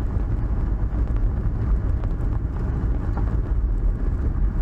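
1996 Mazda Miata's 1.8-litre four-cylinder engine running, a steady low rumble.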